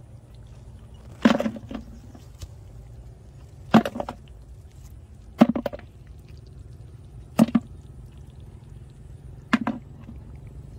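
Five sharp knocks about two seconds apart, each with a brief hollow ring: mud snails dropped one at a time into a plastic bucket as they are picked from the mud.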